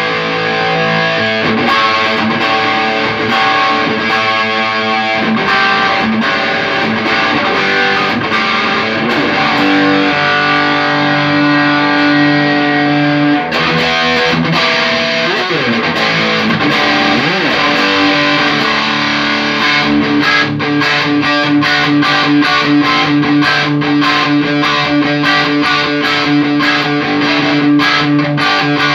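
Electric guitar played through a Tech21 SansAmp GT2 amp-simulator pedal with a distorted tone, the pedal being tested after a repair. Held notes and bent or sliding notes give way, about two-thirds of the way in, to fast, evenly picked rhythm playing.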